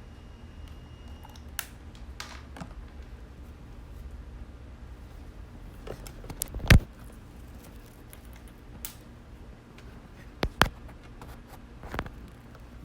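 Scattered clicks and knocks of small audio gear being handled, with one sharp knock about halfway through and a few more near the end, over a faint steady hum.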